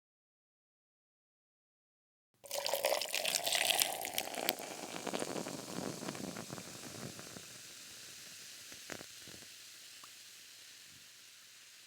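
Water pouring or running into a sink or container. It starts suddenly about two seconds in, is loudest at first, then tapers off gradually, with a couple of small clicks near the end.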